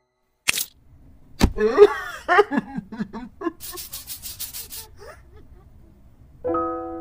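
Cartoon soundtrack: a short swish and a sharp knock, then a character's wordless, wavering vocal noises, followed by about a second of quick, even scratching strokes as the character scratches its head. A few held music notes come in near the end.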